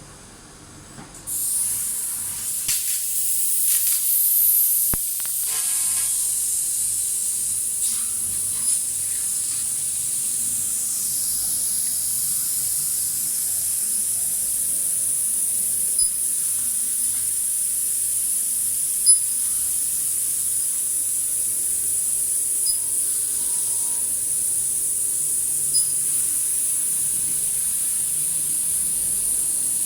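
A running cutting machine with a steady high hiss that comes on about a second in, with a few faint ticks through it.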